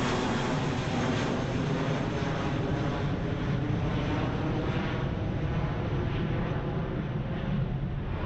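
Twin-engine jet airliner flying low overhead, its engines giving a steady, unbroken noise throughout.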